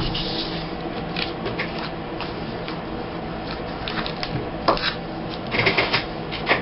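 Paper and card stock being handled on a table: scattered rustles and light taps, with a quick cluster of them near the end.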